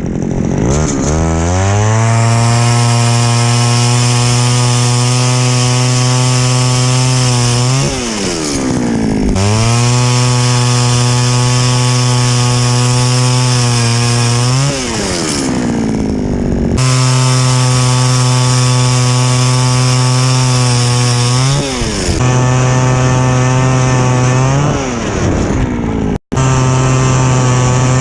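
Small gasoline engine revving up, holding a steady high speed for several seconds, then dropping back and revving up again, about four times over.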